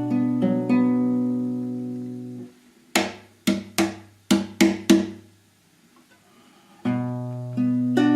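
Guitar fingerpicking a B minor chord: a bass note with single strings and pairs of strings plucked in turn and left ringing. About three seconds in comes a quick run of about seven short strummed strokes, then a brief pause, and the picking starts again near the end.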